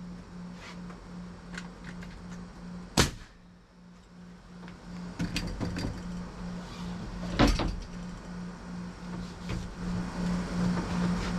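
Siding being nailed on: two loud sharp strikes about four and a half seconds apart, with a few lighter knocks in between, over a low steady pulsing hum.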